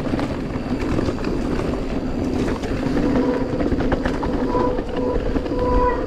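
Giant Reign E+1 electric mountain bike riding downhill on a dirt trail: steady wind rush and tyre roar with the bike rattling and knocking over bumps. A thin whine comes and goes through the second half.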